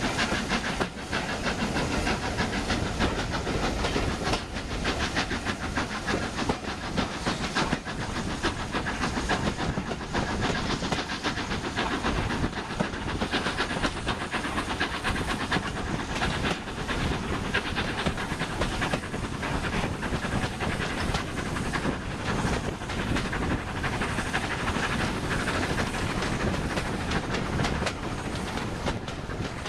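LNER K4 three-cylinder steam locomotive working along at speed, its exhaust beating in a fast, even rhythm over the noise of the carriage wheels running on the rails, heard from a window of the train it is hauling.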